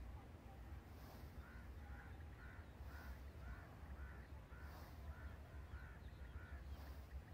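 A bird calling in a quick run of about ten short, arched notes, roughly two a second, over a low wind rumble on the microphone.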